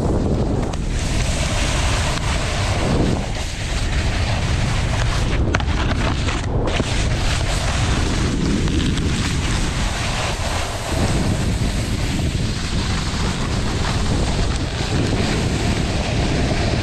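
Wind rushing over the microphone of a selfie-stick camera while riding a snowboard, mixed with the steady hiss and scrape of the board sliding over packed snow.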